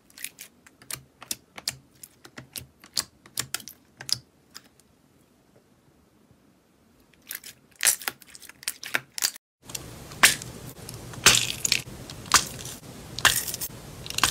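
Clear jelly slime pressed and poked by hand in a plastic tub, giving a run of sharp sticky clicks and pops, with a pause of a couple of seconds in the middle. About ten seconds in, the sound cuts to louder crackling squishes over a steady hiss as a hand squeezes an orange jelly slime.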